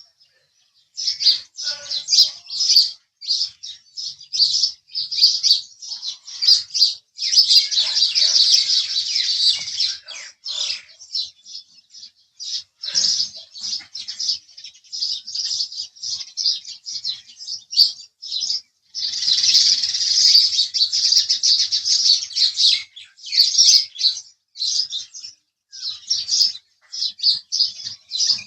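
House sparrows chirping continuously in quick, repeated short chirps. The chirping thickens into a dense overlapping chatter twice, about a quarter of the way in and again past the middle.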